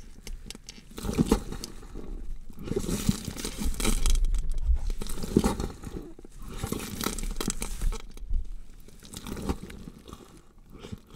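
Dissection sound effect: tearing, crunching and crinkling of flesh being cut and pulled apart, in irregular bursts that die down near the end.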